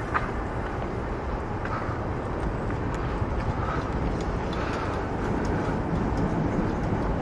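Steady low rumble of traffic on a steel bridge.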